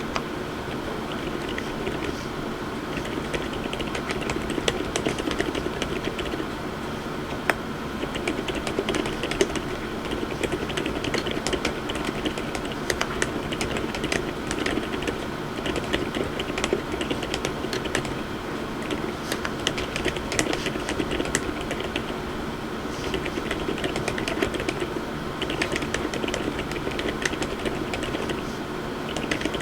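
Continuous typing on a MonsGeek M1W mechanical keyboard fitted with low-noise, light-force Outemu Lime switches and Kuromi keycaps: a steady run of many quick keystrokes.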